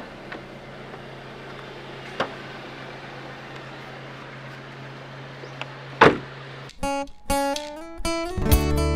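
A steady low hum with a few faint clicks, then a sharp loud whoosh about six seconds in. Acoustic guitar music with plucked notes starts right after it.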